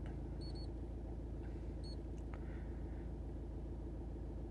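2.0 TDI four-cylinder diesel engine idling steadily, heard from inside the car's cabin as a low, evenly pulsing rumble. A few faint high electronic beeps sound about half a second and two seconds in.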